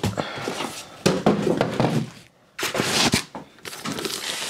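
Cardboard packaging being handled as a shipping box is opened and a white inner box is lifted out: irregular scraping, rustling and knocks of cardboard, with a brief pause a little past halfway.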